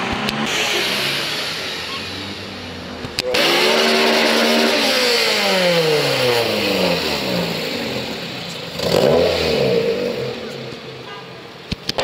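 Cars accelerating hard, engines revving. About three seconds in the sound jumps to a louder car whose engine note climbs and then falls steadily as it drives past. Near the end there is a second short burst of revving.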